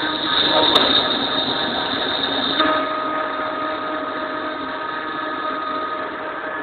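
Metal-working machine tool running steadily with a whirring hum. A sharp click comes just under a second in, and about two and a half seconds in the pitch of its running shifts to a new steady set of tones.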